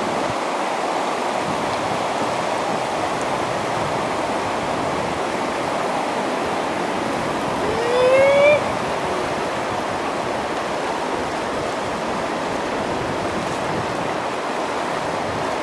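River rapids rushing steadily. About eight seconds in, a short rising whoop, like a shout, rises above the water.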